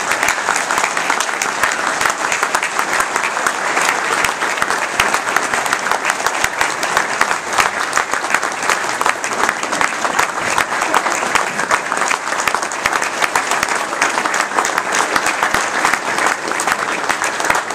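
A roomful of people applauding: steady, dense clapping from many hands.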